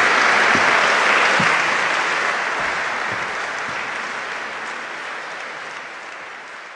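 Audience applauding, a dense steady clapping that fades away over the last few seconds.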